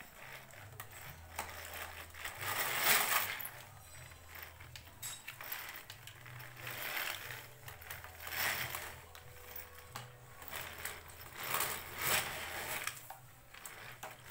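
Plastic baby walker's small wheels rolling and rattling across a hard floor in irregular bursts as a baby pushes it along, the frame and toy tray clattering with each push.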